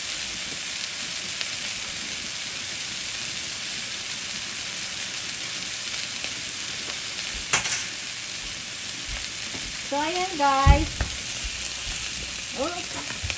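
Sausages sizzling steadily in a nonstick frying pan, frying in their fat now that the cooking liquid has boiled off. A sharp click comes a little past halfway, and a knock about three-quarters through.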